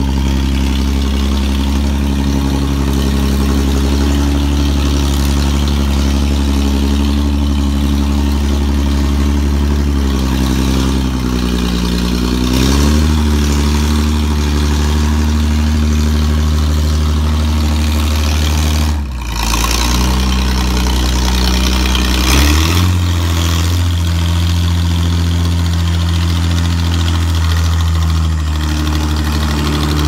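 Dynahoe backhoe's engine running under load as the machine drives off. The engine note sags and shifts about ten seconds in, dips briefly a little before twenty seconds, then shifts again: the torque converter is locking up slightly because it is not yet completely filled with fluid.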